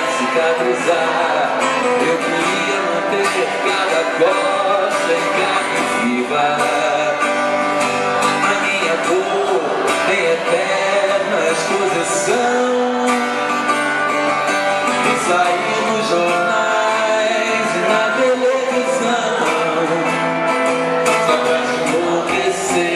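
Live song performance: a man singing over guitar, with music playing steadily throughout.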